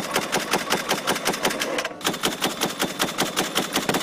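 Automatic machine-gun fire: a fast, steady rattle of shots, many per second, with a short break about two seconds in.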